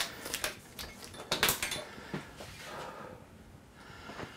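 A few light clicks and knocks of hard objects being handled, with a sharper clack about a second and a half in.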